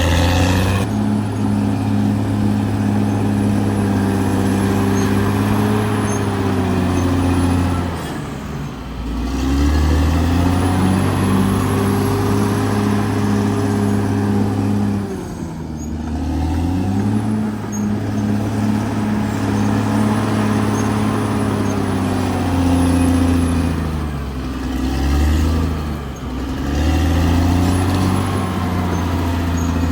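Caterpillar D6R XL bulldozer's diesel engine running loud and steady. Its pitch sags and then climbs back three times: about eight seconds in, about a quarter-minute in, and again near the end.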